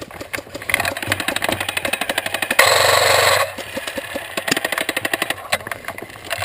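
Airsoft electric guns firing rapid full-auto bursts, with one much louder burst lasting about a second near the middle.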